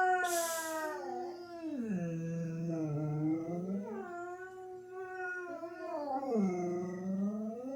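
Pet dogs howling in long, drawn-out calls whose pitch slides down low and rises again, several times over. There is a brief hiss about half a second in. The dogs started howling after their owners left the house.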